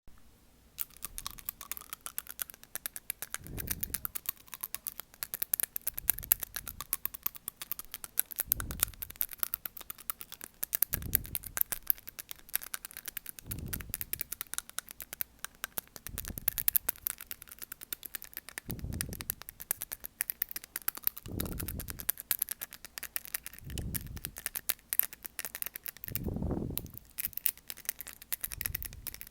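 A microphone producing what the uploader calls wind noise: constant fast crackling, with a low whooshing rumble swelling about every two and a half seconds. The mic is faulty, doing this again.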